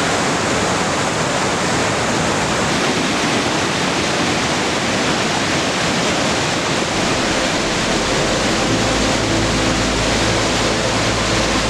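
Waterfall rushing with a loud, steady roar of falling water. A low rumble joins about seven seconds in.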